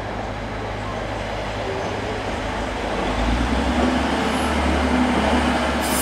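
Diesel train engine running, a low steady drone that grows louder about three seconds in.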